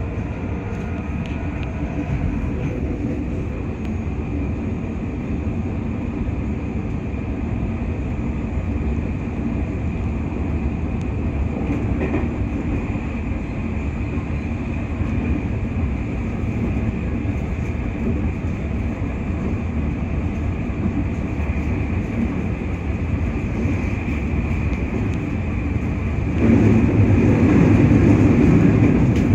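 JR 221 series electric train running, heard from on board: a steady rumble of wheels on track that grows noticeably louder about three quarters of the way through.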